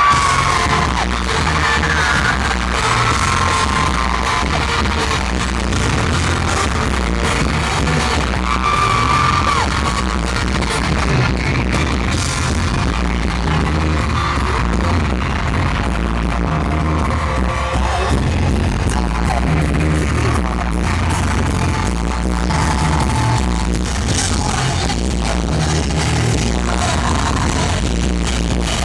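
Live pop-rock band playing loud in an arena: electric guitars, drums and lead singing, recorded from the crowd with poor, overloaded sound.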